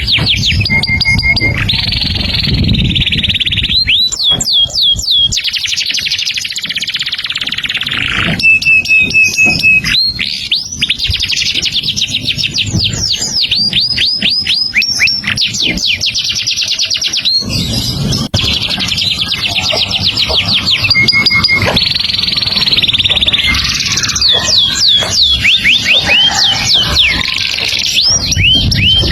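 A songbird singing a long, nearly unbroken song of fast up-and-down whistles, rapid trills and short held notes, over a low background rumble.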